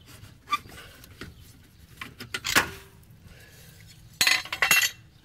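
Knocks and metallic clatter as a loosened metal underbody panel is worked off a Porsche 987 Cayman S's center tunnel, with a louder burst of rattling about four seconds in as it comes free.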